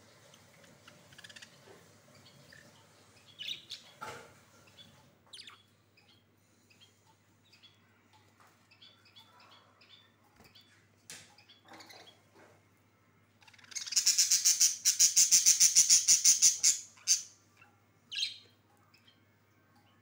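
Budgerigars chirping in a breeding cage: scattered short high chirps, then about halfway through a loud run of rapid, evenly pulsed calls lasting about three seconds, followed by a few more chirps.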